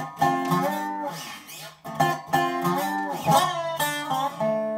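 Intro music: a guitar picking a quick phrase of single notes, ending on a chord that rings out near the end.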